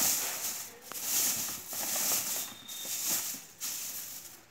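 Dry paddy straw rustling and crackling in repeated bursts as a gloved hand presses it down into a plastic vermicompost bed bag.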